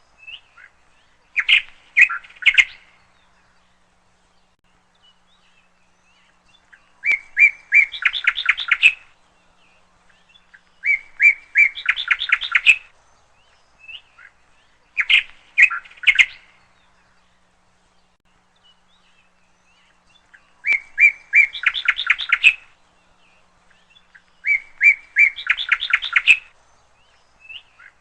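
A songbird singing: six short phrases of quick, repeated chirping notes, each lasting one to two seconds, with pauses of a few seconds between them.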